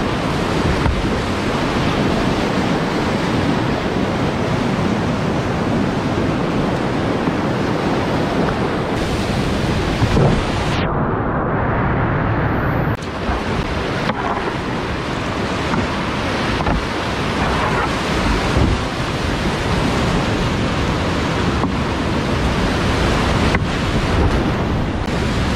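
Whitewater rapids rushing loudly and splashing around a whitewater kayak, heard close up from the boat. The sound goes muffled for about two seconds around the middle, and a few sharp splashes come near the end.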